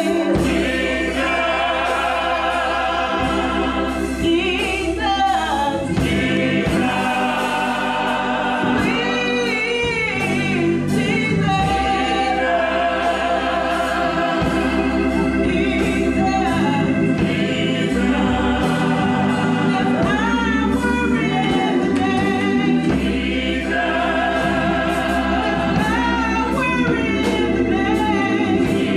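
Gospel church choir singing in full voice, with sustained instrumental accompaniment underneath.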